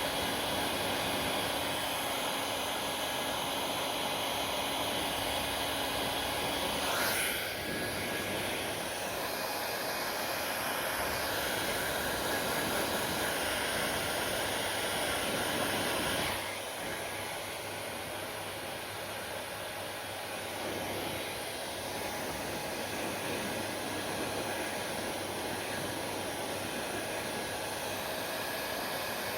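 Hair dryer blowing steadily with a whooshing airflow noise and a faint motor whine. The sound shifts briefly about seven seconds in and drops slightly in level at around sixteen seconds.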